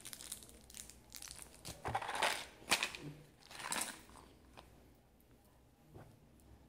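Handling noise from hands fiddling with small items close to the microphone: rustling and crinkling with small clicks, loudest about two to four seconds in, then quieter.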